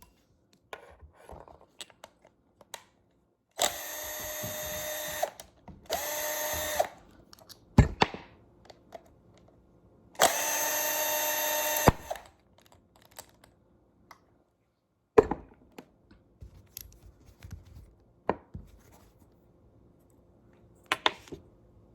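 Power drill/driver running in three short bursts, about a second or two each, to take off the first part of a Honda/Acura VTEC spool valve assembly. Sharp clicks and knocks of parts being handled come between and after the bursts.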